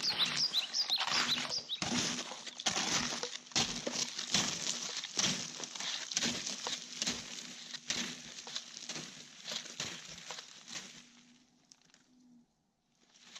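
Footsteps of a person walking through the woods, an uneven tread of one or two steps a second that fades away near the end. A few short high chirps come in about the first second.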